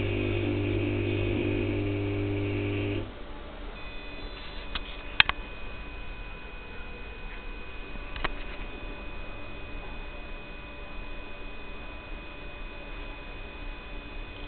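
Philips SON-H 210 W high-pressure sodium lamp and its choke ballast giving a loud, steady mains hum and buzz that cuts off suddenly about three seconds in, as the lamp drops out while cycling during warm-up. A few sharp clicks follow, with a fainter steady hum and whine.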